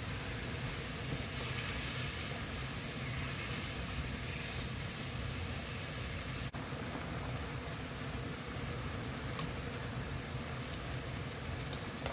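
Soy-based braising sauce bubbling and sizzling at a steady boil in a frying pan around slices of beef as they simmer down. A single short sharp click sounds about nine seconds in.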